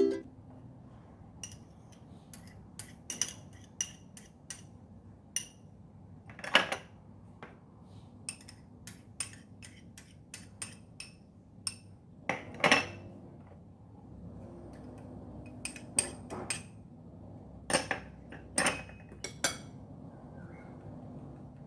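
Kitchen utensils and dishes clinking and tapping: scattered sharp clicks at irregular intervals, with a handful of louder knocks.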